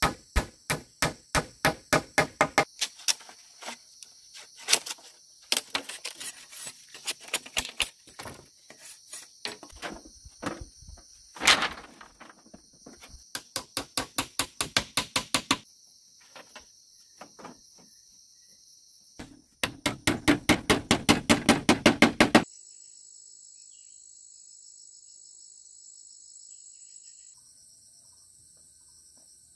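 Fast runs of tool strikes on bamboo, about five or six a second, in several bursts with pauses; the loudest run comes about two-thirds of the way in and then stops. Insects keep up a steady high buzz and chirping throughout.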